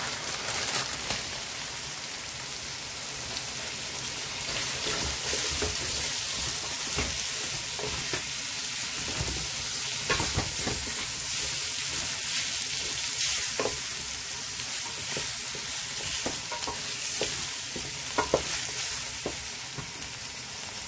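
Freshly added mixed vegetables and chicken frying in oil in a metal pot, a steady sizzle, while a wooden spoon stirs them with scattered clicks and scrapes against the pot.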